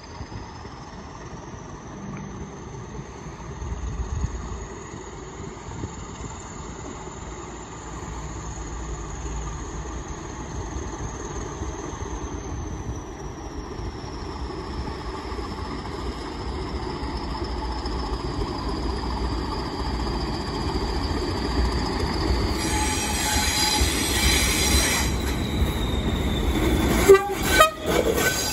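Pair of Class 20 diesel locomotives with English Electric engines approaching and passing while hauling carriages. Their low rumble builds steadily, a thin high whine rises and then slowly falls in the first half, and a horn sounds for about two seconds near the end. Wheel clicks follow as the locomotives draw level.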